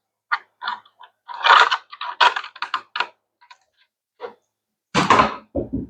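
Hard plastic hydroponic tower parts clicking and knocking as they are handled and fitted together, ending in a louder clatter and a deep thud as a piece is set down.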